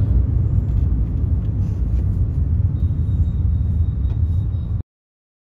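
Steady low rumble of a car's engine and road noise heard inside the cabin, cutting off abruptly near the end.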